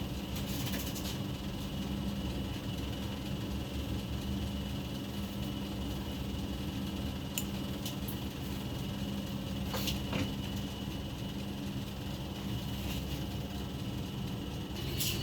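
Turbo broiler (halogen convection oven) running with a steady fan hum, with a faint click about ten seconds in.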